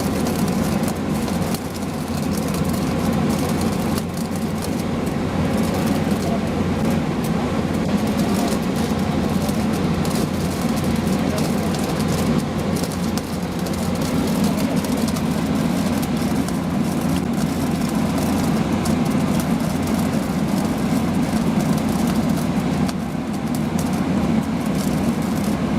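Heavy rail-welding machinery running steadily: a low, even drone with a fine crackle on top.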